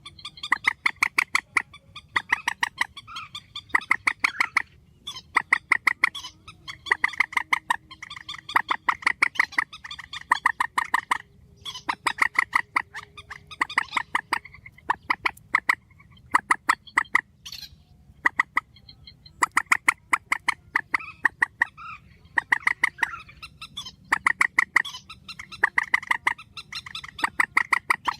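Swamphen calls: loud, rapid cackling bursts of about a second each, repeated again and again with short gaps. This is a spliced call track of the kind used to lure swamphens.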